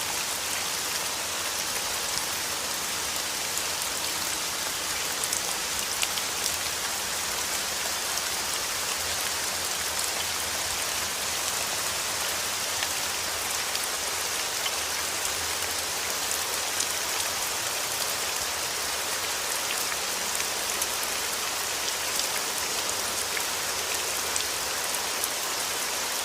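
Steady rain falling and pattering on a surface, an even hiss with many small drop taps scattered through it.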